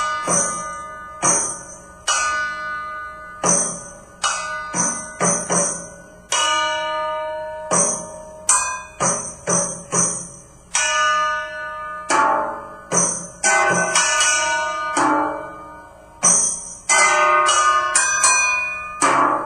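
Percussion played on household objects: an uneven rhythm of strikes that ring out like bells in several pitches and die away, many with a short hiss on the beat.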